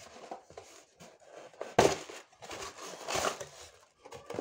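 Cardboard box being opened by hand: rustling and scraping of card, with a loud sudden rasp about two seconds in and another burst of rustling about a second later.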